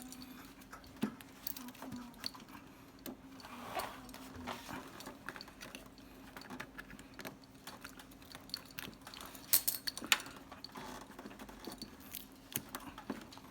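Scattered light clicks and rattles of plastic parts and tubing being handled as pipes are pulled out of a connector, with two louder clicks about two-thirds through, over a steady low hum.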